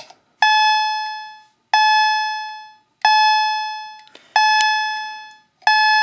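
Wheelock CH-70 fire alarm chime-strobe sounding at full volume, set off by a toggle switch: a repeating electronic chime tone, struck about every 1.3 seconds and fading away after each strike, five strikes in all.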